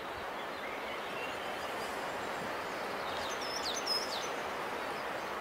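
Woodland ambience: a steady, even hiss of outdoor background noise, with a few short, high bird chirps about three to four seconds in.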